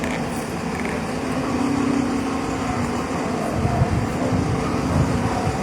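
Heavy vehicle engine running steadily, with a low rumble that swells about halfway through.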